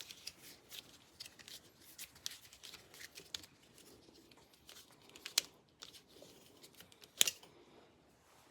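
Hands handling small parts and tools: light rustling and clicking, with two sharper clicks about five and seven seconds in.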